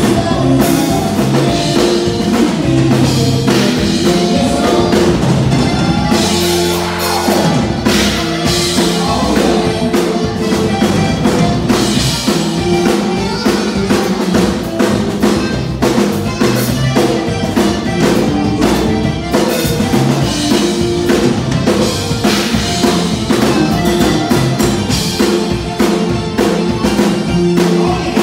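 Tejano conjunto band music with a steady drum-kit beat and bass line playing a dance tune.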